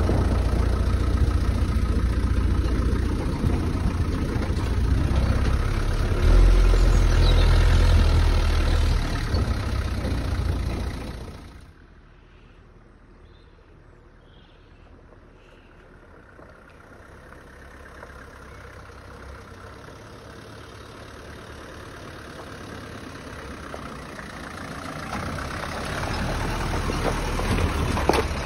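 Land Rover Series III engine running as it drives over rough field ground, heard from the driver's seat. About a third of the way in the engine sound cuts off abruptly to quiet outdoor sound, then an engine grows steadily louder as the vehicle approaches.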